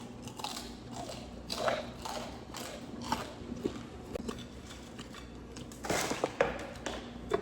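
Close-up eating sounds: irregular soft bites and chewing on crunchy fried chicken, with scattered small clicks and crunches and a busier cluster about six seconds in.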